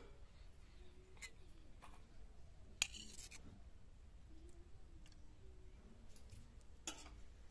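A few light metallic clicks and clinks of a steel ladle against an iron kadai and steel serving plates as curry is ladled out, the loudest about three seconds in.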